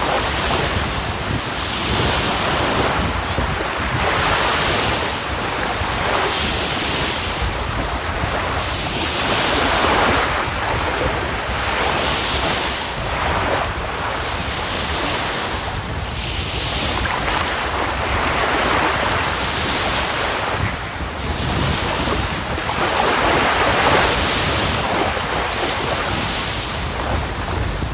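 Baltic Sea surf washing onto the shore in swells every few seconds, with wind rumbling on the microphone.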